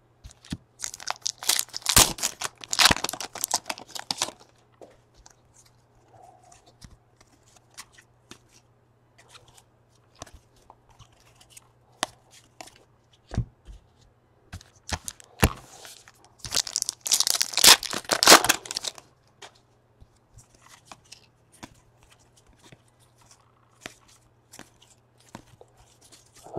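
Baseball card pack wrappers being torn open and crinkled, in two bursts: one about a second in, the other about sixteen seconds in. Between them are scattered light clicks of cards being handled.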